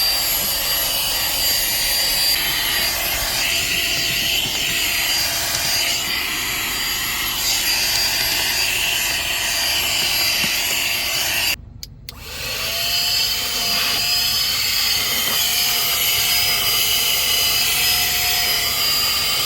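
Compact cordless handheld vacuum cleaner running steadily with a high motor whine. About twelve seconds in it cuts out for half a second, then spins back up.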